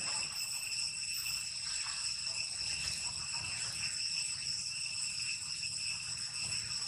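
Insects droning in a steady, high-pitched chorus that holds without a break.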